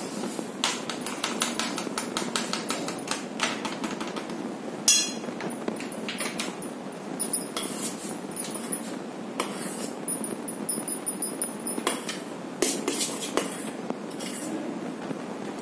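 Metal spoon clinking and scraping against a stainless steel bowl while spice-mix powder is stirred into tomato purée. A quick run of small taps comes in the first few seconds, and a sharp knock about five seconds in.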